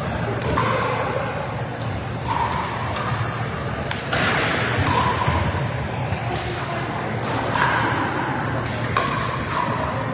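Irregular sharp pops of pickleball paddles striking plastic balls, from several courts, ringing in a large sports hall.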